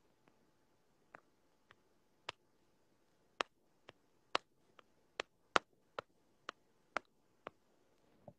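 A string of sharp, uneven clicks, starting about a second in and coming roughly two a second, some louder than others, against a quiet small room.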